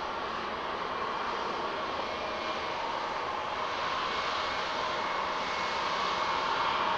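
Embraer E190-E2 airliner's Pratt & Whitney geared turbofan engines running: a steady jet rush with faint whining tones, growing gently louder near the end.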